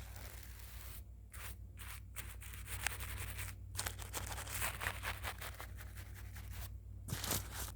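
Sketching strokes: rapid scratchy strokes and rubbing in runs, with short pauses a little before halfway and near the end.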